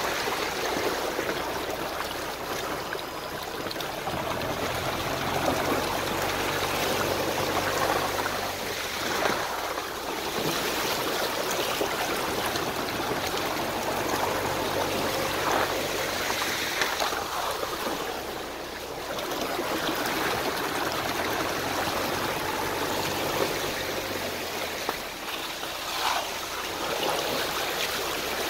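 Volkswagen Tiguan driving slowly along a wet, muddy forest track: a steady watery rush of tyres through mud and puddles, with a low engine hum that comes and goes.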